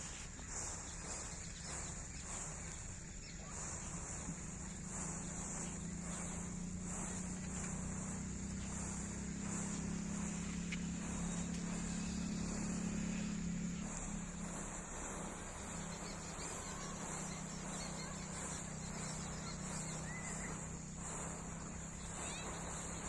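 Insects chirring steadily at a high pitch, cricket-like, pulsing in the first few seconds. A low hum swells under it from about four seconds in and fades near the middle.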